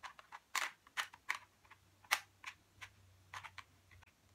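Sharp clicks and light scrapes of a Meike 25mm f/1.8 manual lens being fitted onto a Fujifilm X-A3's X-mount, metal and plastic knocking as the lens is lined up and turned. The loudest click comes about two seconds in.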